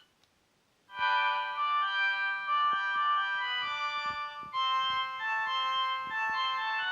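Siemens A60 mobile phone playing one of its preloaded polyphonic ringtones: a melody of held notes in chords that starts about a second in, after a brief silence.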